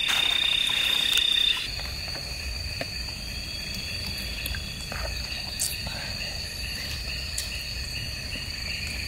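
Night-time insect chorus of crickets, a steady high-pitched trilling, with a few faint clicks.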